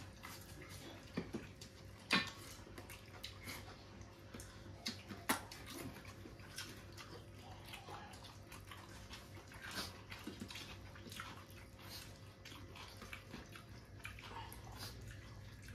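Quiet sounds of people eating by hand: chewing and mouth sounds with scattered sharp clicks and small taps, over a faint steady hum.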